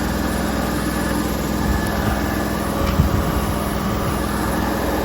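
Steady low mechanical hum, like a running engine, with a few faint knocks in the middle; it cuts off abruptly at the end.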